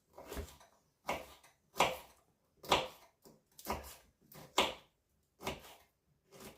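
Knife cutting fresh ginger on a cutting board: about eight sharp knocks, roughly one a second.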